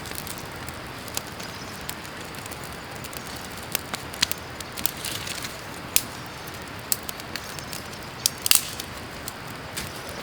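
Creek water running steadily, with scattered sharp clicks and crackles over it, the loudest cluster near the end.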